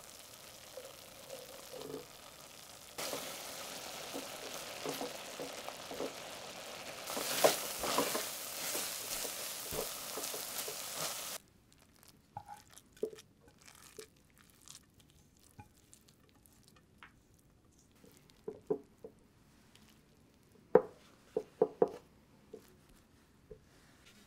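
Soaked glutinous rice and water sloshing in a metal bowl, a steady wet hiss that grows louder twice, with a few sharper splashes. It cuts off suddenly and gives way to scattered soft scrapes and taps as a metal spoon lays the wet rice out on a cotton cloth.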